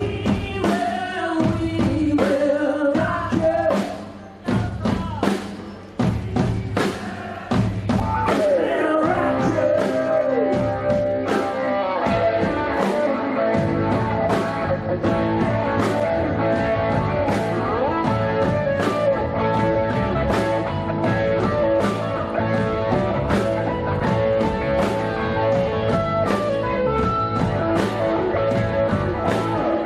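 Live rock-blues band playing on drum kit and electric guitar. For the first several seconds it plays stop-start hits with short gaps, and from about eight seconds in the full band plays continuously.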